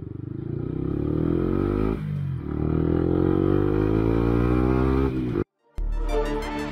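Yamaha MT-125's single-cylinder engine accelerating hard: the revs climb through one gear, dip at a gear change about two seconds in, then climb through the next gear and fall off. The sound cuts out abruptly, and electronic music starts near the end.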